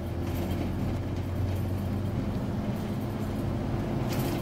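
Scania OmniCity double-decker bus's diesel engine running with road noise, heard from inside the moving bus as a steady low hum.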